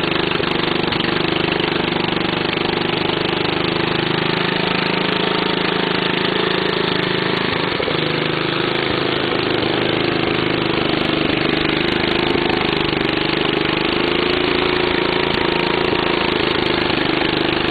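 Briggs & Stratton 8 hp single-cylinder flathead engine (model 190432), freshly rebuilt with new valves and piston, running steadily at an even speed.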